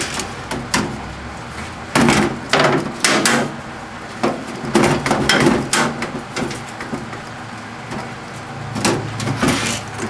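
Metal parts of a microwave oven being slid, pulled and knocked during disassembly: a series of irregular scrapes and clunks.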